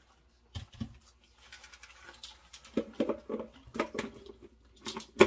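Irregular pattering and light knocks of a plastic popcorn bowl and its lid being handled, with popped popcorn shifting inside. A sharp click comes near the end.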